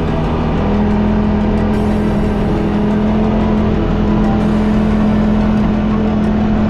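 Quad bike or buggy engine running at a steady speed, its pitch stepping up slightly under a little more throttle about a second in, with music underneath.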